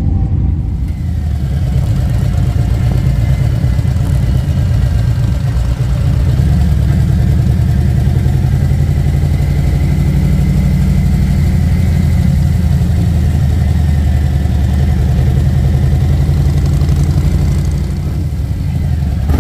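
Harley-Davidson motorcycle's V-twin engine running steadily while the bike is ridden, heard from on the bike.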